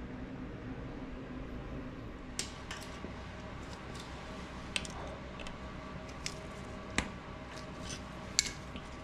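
Scattered sharp metallic clicks and taps, about eight in all, as an L-key works the speed-sensor screw at the front wheel hub of a BMW R 1200 RS motorcycle. The clicks start a couple of seconds in, over a steady low background hum.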